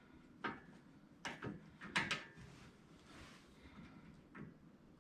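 Light metallic clicks and clinks, about half a dozen spread over a few seconds, as a snap ring is fitted onto the pivot of a Jeep TJ tire carrier.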